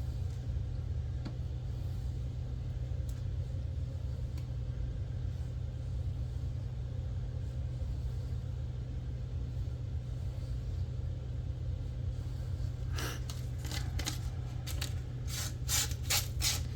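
Steady low hum, then about thirteen seconds in a quick, irregular run of short scraping strokes from a pocketknife blade being worked.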